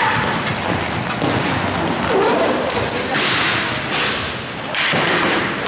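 Inline roller hockey play echoing in a sports hall: skate wheels rolling on the court and sticks clacking, with several sharp slaps of stick on puck or stick.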